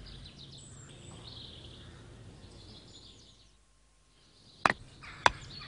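Faint bird chirps over a quiet outdoor background that fades almost to silence, then a mallet knocking a tent peg into the ground: two sharp knocks about half a second apart near the end.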